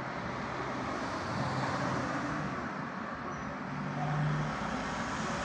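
Street traffic passing: a steady rush of car tyre and engine noise that slowly swells, with a brief low hum standing out near the end.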